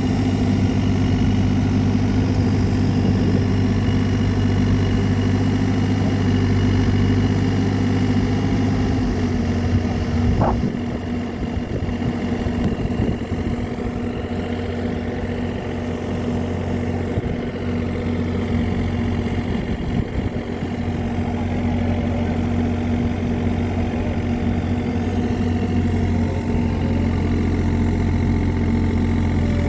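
Engine of a mini excavator running steadily. Its level drops somewhat about ten seconds in and comes back up after about twenty seconds, as the load changes while it pushes a boat into the sea.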